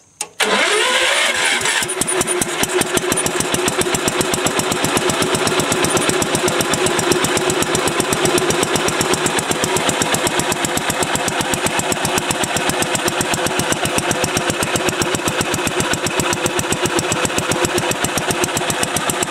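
Kohler 16 HP single-cylinder engine starting on choke about half a second in. It catches at once and then runs steadily with a fast, even beat of firing strokes, a little brighter for the first second or two before it settles.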